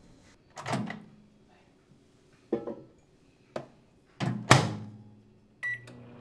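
A few knocks and clacks, then a GE turntable microwave oven's door shut with a loud thunk about four and a half seconds in, followed near the end by short electronic beeps from its keypad as the cook time is set.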